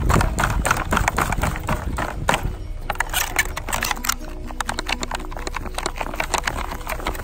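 Thin clear plastic clamshell packaging crackling and clicking as it is handled around a squishy ball. The clicks are dense for the first three seconds or so, then sparser.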